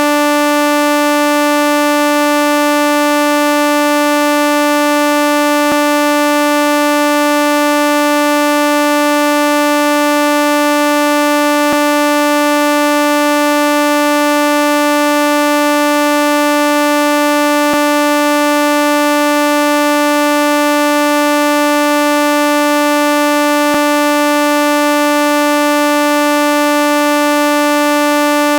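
Steady electronic buzzing tone held at one pitch throughout, rich in overtones like a synthesizer or buzzer, with a faint click about every six seconds.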